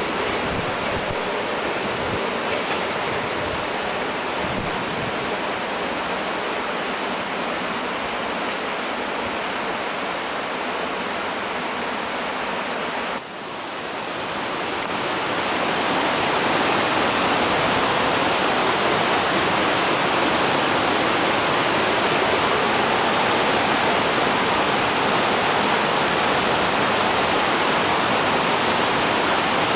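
Fast mountain river rushing over rocks: a steady, even rush of water. About 13 seconds in it drops out for a moment and comes back louder.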